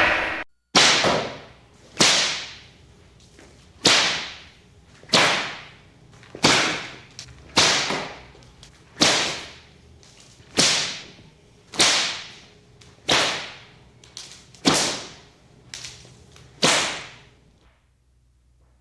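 A whip cracking about a dozen times, one sharp crack every second or so, each dying away quickly; the cracks stop shortly before the end.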